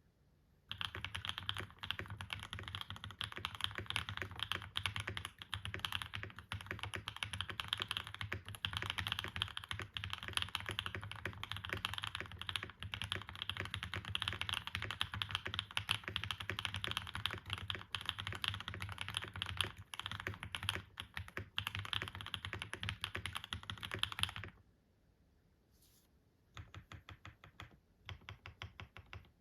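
Fast, continuous typing on a Brutal65 V2 mechanical keyboard with hand-lubed Gateron Smoothies switches, KKB Skidata Neo keycaps and PE, plate and case foam. The typing stops about 24 seconds in, and after a short pause slower, separate keystrokes start.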